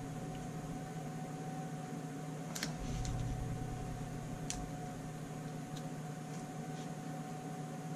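Steady room hum with a thin high tone, and a few faint clicks as a small revolver grip panel is handled and wiped with a cloth.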